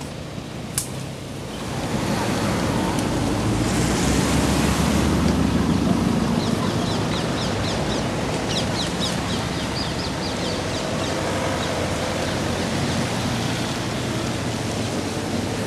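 Rain and wind through the trees: a steady rushing noise that swells about two seconds in, with wind buffeting the microphone. A single sharp tick comes near the start, and a run of short high chirps falls in the middle.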